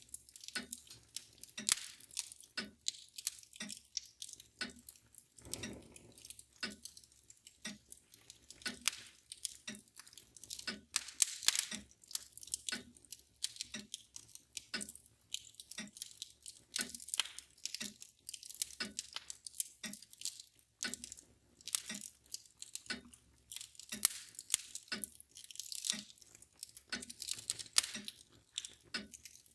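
Wood fire crackling and popping irregularly in a fireplace, over the steady, even ticking of a mantle clock.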